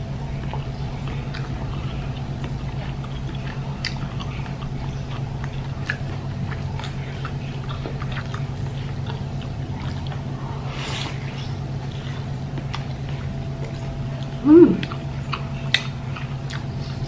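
Close-up chewing and biting on bakso meatballs and noodles, with small clicks of a fork and spoon against the bowl, over a steady low hum. Near the end comes one brief, loud sound that falls in pitch.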